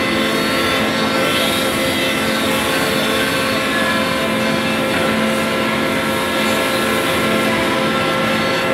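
Woodmaster 4-axis, 16-spindle CNC wood machining centre running, its spindles giving a steady whine at several pitches over continuous machine noise.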